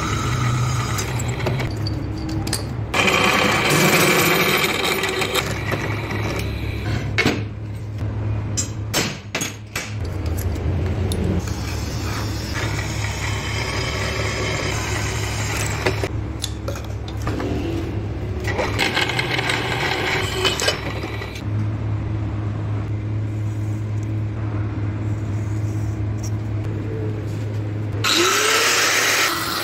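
Drill press motor running with a steady low hum while a twist drill bores holes through steel plate. The cutting comes in a few louder spells of high-pitched grinding, with sharp clicks and clatter in between.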